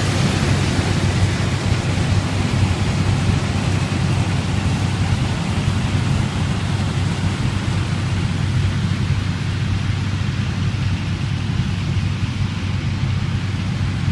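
Massey Harris 726 combine harvester running while harvesting: a steady low engine rumble under a rushing noise, the higher part easing off over the last few seconds.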